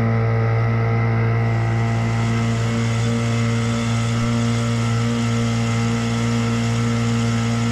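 Outboard motor on a small aluminium tinny running steadily at a constant speed, its pitch unchanging.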